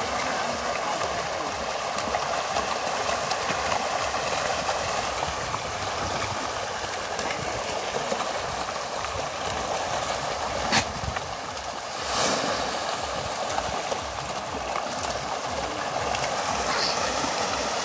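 Pangas catfish churning the surface of a pond: a steady rushing, bubbling water noise, with a sharp click about eleven seconds in and a brief louder splash just after.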